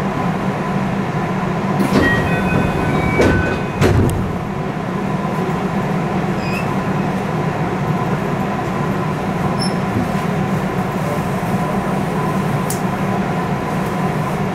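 Interior of an electric commuter train arriving at a station: a steady running hum and rumble, with brief squeals and clicks about two to three seconds in and a low clunk about four seconds in, then an even hum.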